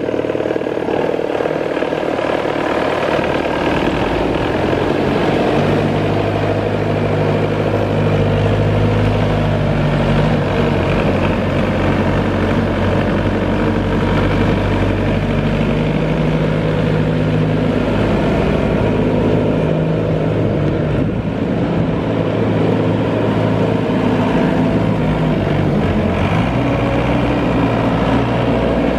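Multihog MH90 utility tractor's Yanmar diesel engine running as the machine drives slowly. It is a steady low engine hum whose pitch shifts slightly a few times.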